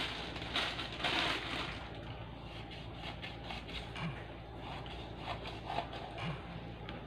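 Kitchen knife scoring whole sea bass on a plastic cutting board. The blade cuts into the skin with short crunching scrapes, strongest in the first second or so, then scattered light clicks as the cuts go on.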